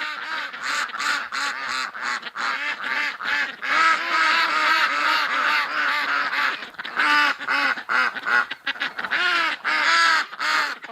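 A flock of domestic ducks quacking continuously, with many short calls overlapping and following one another in quick succession.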